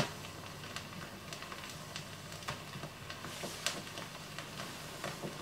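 Vinyl record surface noise played back through the speakers: a faint steady hiss with scattered clicks and crackle from the stylus once the spoken track on the audio check record has ended.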